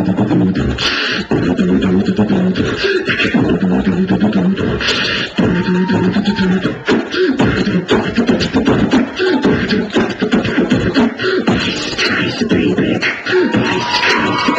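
A person beatboxing: a fast, continuous rhythm of vocal kick, snare and hi-hat sounds, with a low hummed bass line under them.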